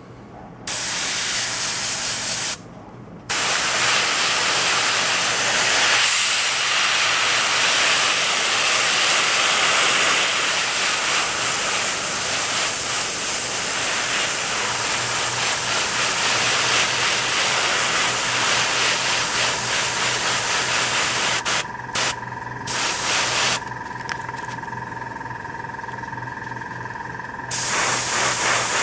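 Dual-action gravity-feed airbrush with a 0.2 mm nozzle hissing as it sprays paint, in long passes with a short stop about two and a half seconds in and a few brief breaks past the twenty-second mark. Near the end the hiss drops softer with a faint steady whistle before coming back at full strength, over a low steady hum.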